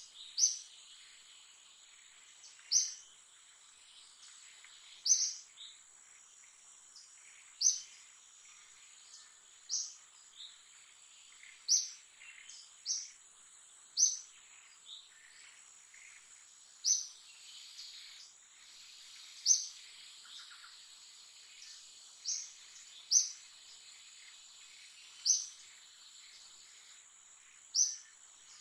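Forest ambience: a bird repeats a short, high chirp every two to three seconds over a steady, high-pitched insect drone.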